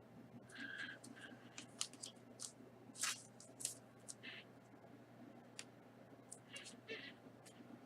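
Faint, irregular clicks and swishes of trading cards being handled and slid across one another, the loudest about three seconds in.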